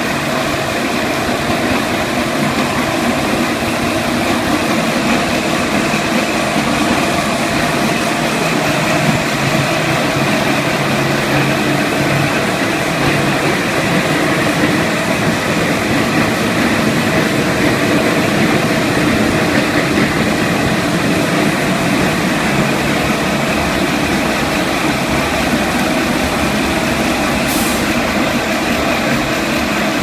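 Remote-control planetary concrete floor grinder running steadily, its electric motor driving the diamond grinding heads over the concrete: a loud, even machine drone with several held tones over a grinding hiss.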